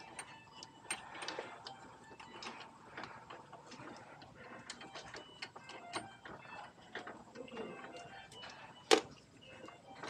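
Scattered light clicks and rattles of hands working among the wiring and plastic connectors inside a hospital bed's base to free a cable, with one sharper click about nine seconds in.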